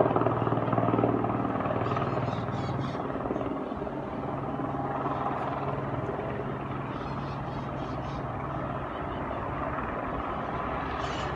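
Police helicopter flying nearby, its rotor and engine making a steady low drone that eases off over the first few seconds and then holds level.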